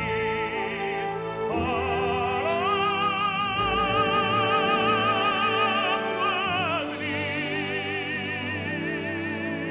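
Operatic singing with a strong vibrato over orchestral accompaniment, in long held notes; the melody steps up about two seconds in and falls away near the end.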